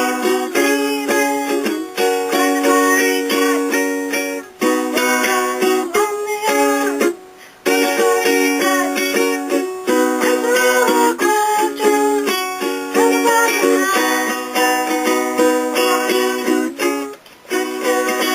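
Ukulele music with plucked chords and melody notes, broken off briefly about seven seconds in and again near the end.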